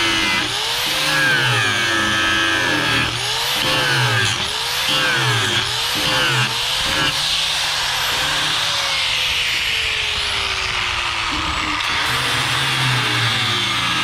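Electric angle grinder cutting off bolt heads, its motor pitch dipping each time it is pressed into the metal and recovering when eased off. Past the middle the pitch sags steadily for a few seconds before the grinder picks up speed again.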